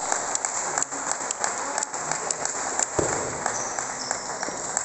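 Spectators clapping after a table tennis point is won, a steady patter of many hands. There is a single sharp thump about three seconds in.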